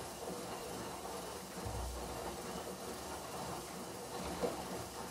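Gorenje SensoCare front-loading washing machine turning its drum in a wash, laundry and water sloshing over a steady mechanical rumble, with a low thump about two seconds in and a short sharp knock near the end. The owner finds the noise weird and takes it for a problem with the machine.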